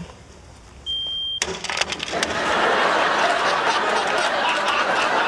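A smoke detector gives one short high chirp, cut off by a sharp smack about a second and a half in, with a few knocks after it. A studio audience then breaks into loud laughter that builds and carries on.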